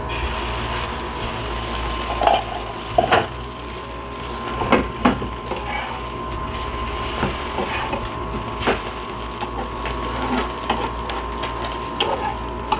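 Beaten egg sizzling on a hot flat griddle (tawa) as it is poured over a paratha frying in ghee, the hiss starting suddenly. A metal spatula knocks and scrapes on the pan every second or two.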